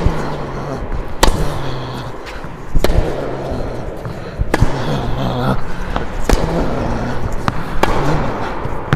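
Tennis rally: a ball struck back and forth by racquets, one of them a Head Prestige, giving a sharp pock about every second and a half, in a large indoor hall.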